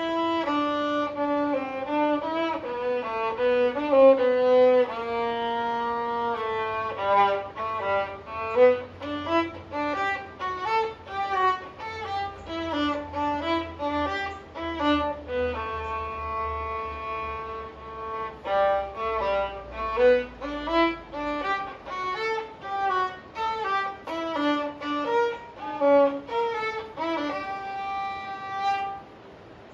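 Solo viola played with the bow: a single melodic line of short notes and longer held ones, stopping briefly near the end.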